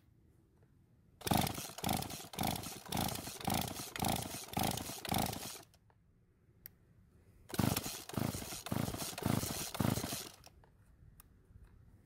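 Two runs of quick, repeated pull-starts on a McCulloch chainsaw's two-stroke engine, about two pulls a second, the engine cranking with the choke on but not catching: fuel is not reaching the carburettor because its purge bulb is broken.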